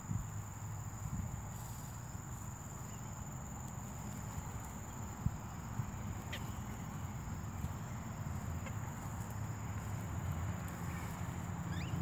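Field ambience: a steady high-pitched insect drone over a low rumble, with a few short, faint bird chirps, one rising near the end.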